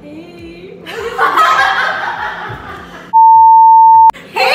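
Two women laughing and giggling. Just past the three-second mark comes a loud, steady test-card beep: one unchanging tone lasting about a second that cuts off suddenly with a click, the tone that goes with colour bars edited into the video.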